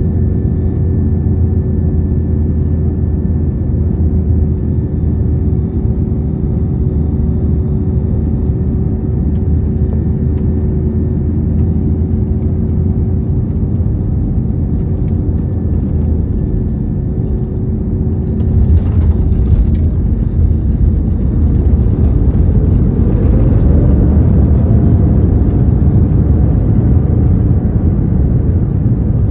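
Cabin noise of an Airbus A321neo coming in to land: a steady low rumble with a constant engine hum. Around two-thirds of the way through there is a short rattling jolt as the wheels touch down. The noise then grows louder as the engines spool up with a rising whine into reverse thrust.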